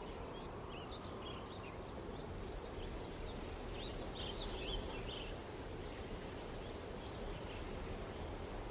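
Faint outdoor field ambience: a steady low rushing hiss, with small birds chirping in short, scattered calls during the first half.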